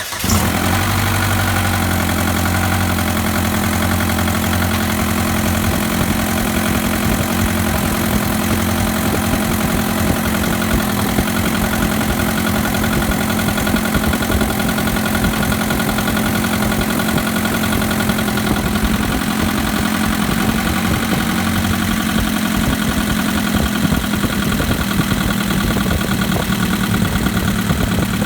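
2011 Chevrolet Equinox's 2.4-litre four-cylinder engine idling steadily just after starting, with the ticking noise it is being sold with; the low hum eases slightly a few seconds in.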